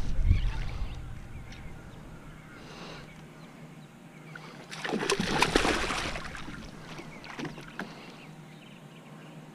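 A hooked bass thrashing at the surface beside the board, with a loud splash lasting about a second roughly five seconds in, then a few small splashes and knocks as it is drawn toward the net.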